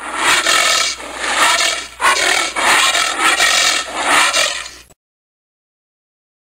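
Giant anteater calling: harsh, hoarse calls in several close bursts that stop abruptly about five seconds in.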